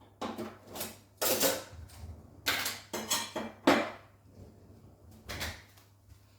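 Dishes and utensils clinking and clattering as they are lifted out of a dishwasher rack and put away, in a string of separate knocks with short gaps between them.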